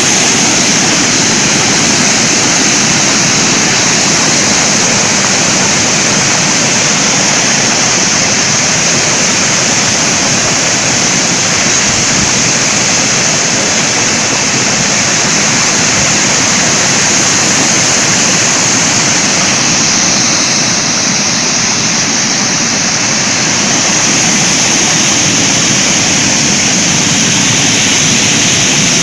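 Fruit and vegetable bubble washing machine running, the water in its tank churning with air bubbles: a steady, loud rushing-water noise with a strong hiss on top.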